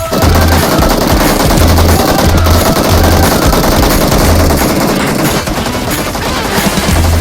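Rapid, continuous automatic gunfire mixed over music with a heavy, regular bass beat.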